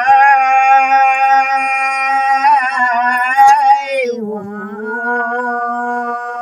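Elderly Nepali man and woman singing a village folk song without accompaniment. Their voices hold one long steady note, slide down in pitch about four seconds in, and hold a lower note.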